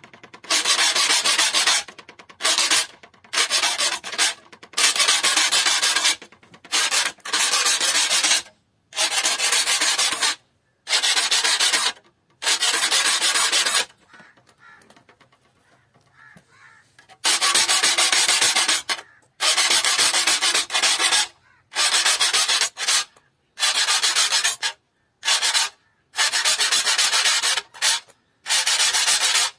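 Steel saw file rasping across the teeth of a clamped hand saw, one stroke about every second or so, as the saw is sharpened. The strokes pause for about three seconds midway, then resume.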